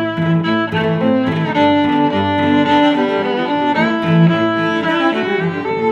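Outro music: a bowed-string piece of cello and violin playing long held notes that change every half second or so.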